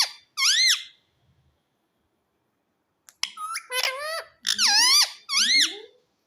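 Indian ringneck parrot giving shrill calls that arch up and down in pitch: one call, a pause of about two seconds, then a quick run of about four more.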